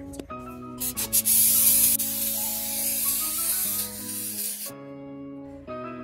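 Aerosol can spraying the caliper during cleaning: a few short clicks, then a steady hiss lasting about three and a half seconds that cuts off suddenly.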